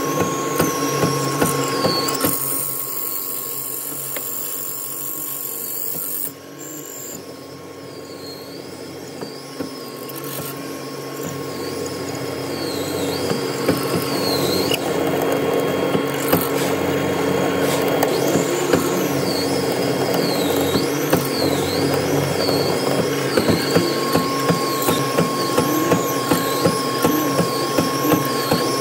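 Hollow-chisel mortising machine running and cutting mortises in hardwood: a steady motor whine under a regular knock of the chisel plunging into the wood, about two a second. The knocking thins out for several seconds in the first third, then picks up again.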